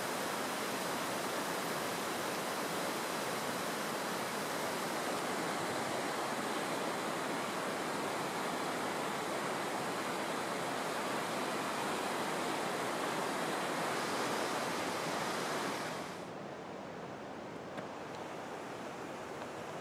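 Steady rush of river water flowing over rock ledges. About sixteen seconds in it drops abruptly to a quieter, duller rush.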